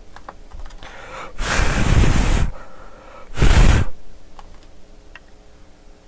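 Two strong puffs of breath blown onto a circuit board to dry off cleaning alcohol: a longer one of about a second, then a shorter one about two seconds later, the air gusting onto the microphone.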